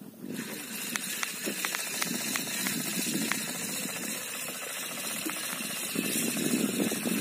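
Boat under way: the engine running, with rushing wind and water noise and scattered clicks and rattles. It starts abruptly just after the opening.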